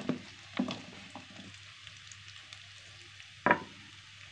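Cooking oil faintly sizzling in a pan, with a few sharp knocks of kitchen utensils; the loudest knock comes about three and a half seconds in.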